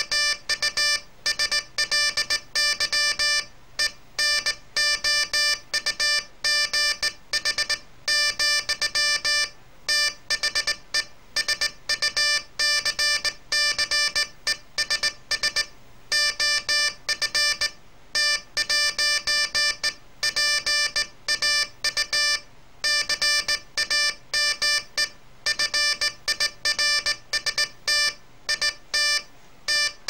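Morse code sent by hand on a straight key through a homemade code-practice oscillator: a buzzy, steady-pitched tone keyed on and off in dots and dashes, with short pauses between letters and words.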